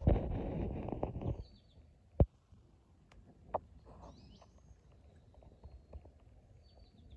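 A burst of rustling for about a second and a half, then a single sharp knock and a smaller one, over a low outdoor background with a few faint bird chirps.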